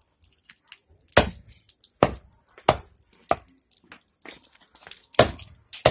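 A blade chopping through a large fish on a hard surface: about six sharp, irregularly spaced strikes, the loudest about a second in and near the end.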